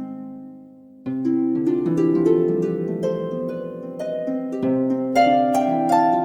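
Instrumental background music of ringing, plucked harp-like notes. A chord dies away, then a new flowing phrase begins about a second in.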